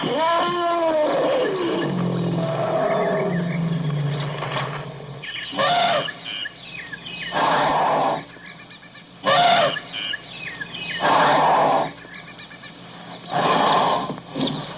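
Elephants calling. The first call rises and falls in pitch, then a low steady call lasts about three seconds, followed by about five short, loud, harsh calls a second or two apart.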